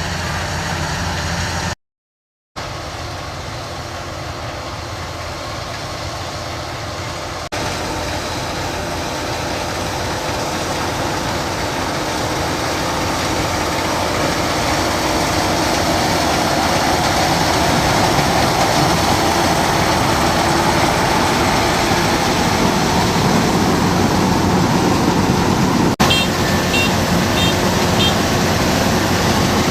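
Kubota DC-93 combine harvester running steadily under load as it harvests rice, its engine and threshing machinery making a continuous mechanical din that grows slowly louder. The sound drops out completely for about half a second, about two seconds in.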